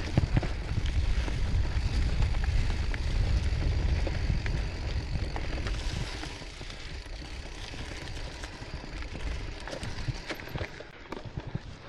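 Mountain bike being ridden on a forest trail: wind rumbling on the bike-mounted microphone and tyres rolling over the ground, with scattered clicks and rattles from the bike. The rumble eases off about halfway through as the bike slows.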